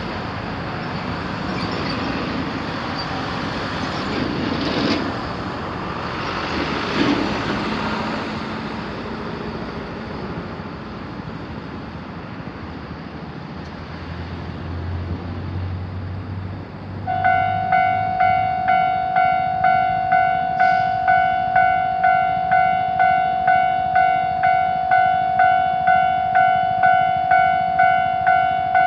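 A Japanese railroad crossing's warning bell starts up about 17 seconds in, ringing in steady repeated bell-like strikes about one and a half times a second. Before it starts there is only steady outdoor traffic noise.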